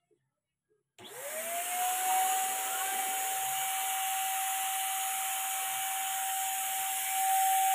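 Handheld 400-watt electric paint spray gun switched on about a second in: its motor spins up quickly to a steady high whine, with a hiss of air and atomised paint as it sprays onto plywood.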